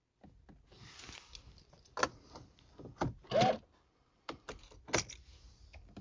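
Short clicks and clunks at irregular spacing, roughly one a second, from the door lock and switches of a 2013 Mercedes-Benz C300 being worked to test them, with one brief squeak a little past three seconds in.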